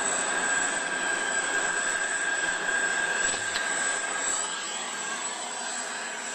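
Boeing 747's jet engines running on the ground: a steady rushing noise with a constant high whine on top.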